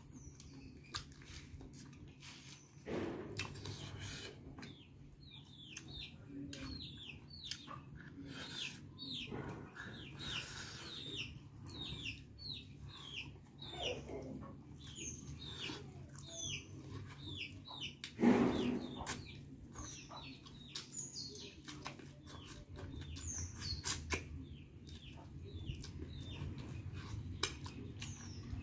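Eating chicken feet by hand: chewing, sucking and wet mouth sounds, with two louder smacks about three seconds in and just after eighteen seconds. Small birds chirp over and over in the background with quick falling calls.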